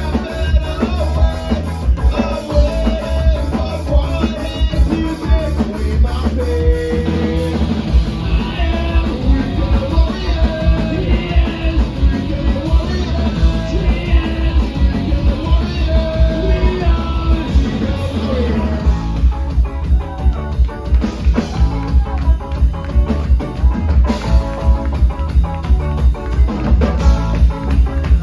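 A punk rock band playing live: drums, guitar and a singing voice, loud and driving, with steady drum hits throughout and the vocal line strongest through the middle.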